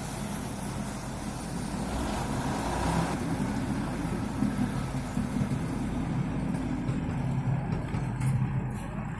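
Engines of road-repair vehicles running steadily, a low engine hum that grows louder and more uneven from about three seconds in.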